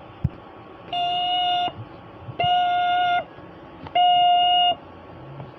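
Three identical electronic alert beeps of an emergency broadcast, each a steady tone about three-quarters of a second long, separated by short pauses. The last beep is the loudest.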